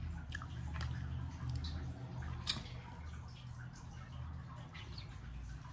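Eating sounds: wet chewing and mouth noises with scattered small clicks and scrapes of a plastic spoon in a paper cup of chili, the sharpest click about two and a half seconds in. A steady low hum sits underneath.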